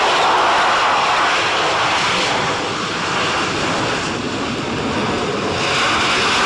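Harrier GR7's Rolls-Royce Pegasus vectored-thrust turbofan, loud jet noise from the display aircraft. The noise eases a little in the middle and swells again near the end.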